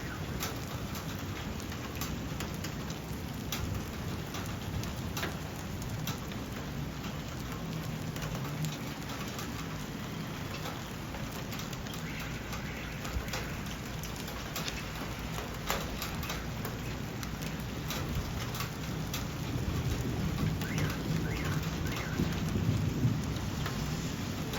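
Steady rain falling, with many single drops striking a nearby surface as sharp ticks. Under it runs a low rumble that swells for a few seconds near the end.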